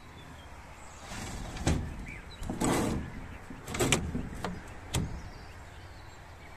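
A polycarbonate greenhouse's sliding door being slid along its track: several scraping slides, with a few sharp knocks and rattles against the frame, the last about five seconds in.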